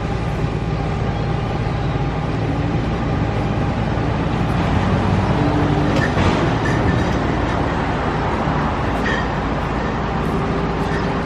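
Steady roadside traffic noise: the engines and tyres of passing vehicles, a box truck among them, with a constant low hum.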